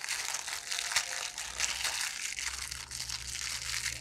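A thin clear plastic wrapper around a small Funko mini figure being crinkled and pulled open by hand: a dense, continuous crackling.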